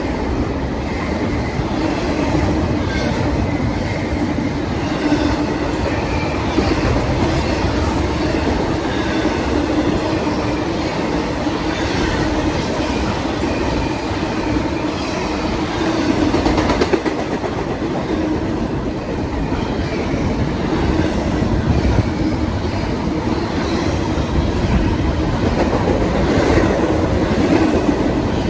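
Double-stack intermodal container well cars rolling past close by: a steady rumble of steel wheels on rail with irregular clatter over the rail joints.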